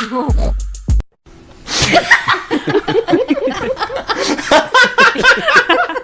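Laughter sound effect: a short clip with a voice over deep bass music cuts off about a second in, and after a brief silence a burst of hearty laughter follows in rapid, repeated ha-ha pulses.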